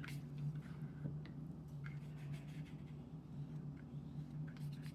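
Faint, scattered taps and light strokes of a wet paintbrush on watercolour paper, over a steady low hum.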